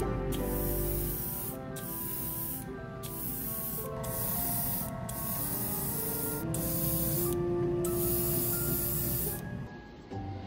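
Airbrush spraying paint in a run of short bursts of hiss, each lasting a second or so with brief pauses between, stopping about a second before the end. Soft background music plays underneath.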